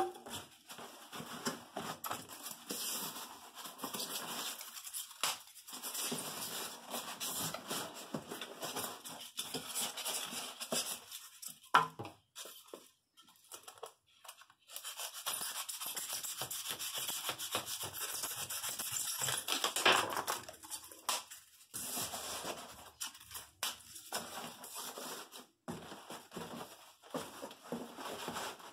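Styrofoam packing pieces being trimmed and handled, scraping and squeaking, with cardboard box flaps rustling. There is one sharp snap about halfway through and a steadier stretch of scraping after it.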